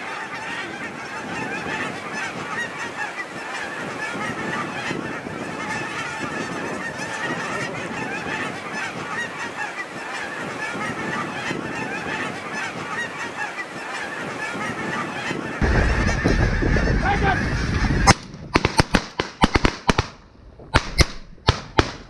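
A huge flock of geese honking continuously overhead, many calls overlapping. About sixteen seconds in a heavy low rumble of wind on the microphone takes over, and from about eighteen seconds there is a run of sharp, loud cracks with short near-silent gaps between them.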